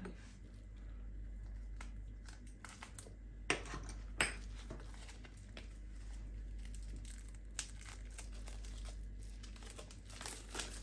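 Plastic packaging crinkling and tearing as it is peeled off a whole raw pheasant by hand, with two sharper crackles about three and a half and four seconds in.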